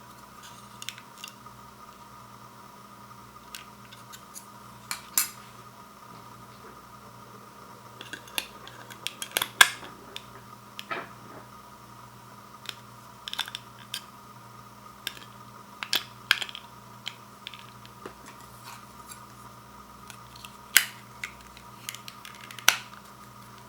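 Irregular clicks, taps and light scrapes from hands handling and opening the packaging of a battery-powered micro LED light strand. A steady background hum runs underneath.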